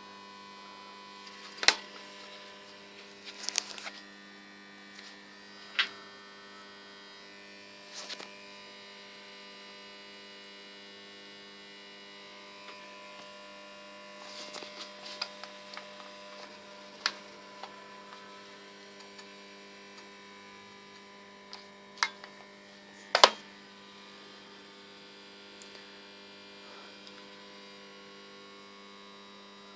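Steady electrical hum of a large mains transformer carrying current, a stack of even tones that does not change. Several sharp clicks and knocks sound over it, the loudest just past twenty seconds in.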